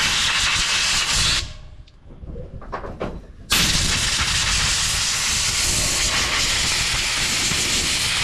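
Compressed-air blow gun hissing as it blows dirt off the top of a fuel tank: one blast that cuts off about a second in, then after a pause of about two seconds a second, longer steady blast.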